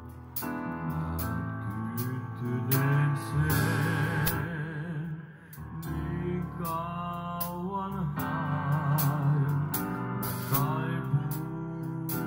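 Live band music: a man singing through a PA with vibrato, backed by drums with regular cymbal strikes, keyboard and electric guitar and bass.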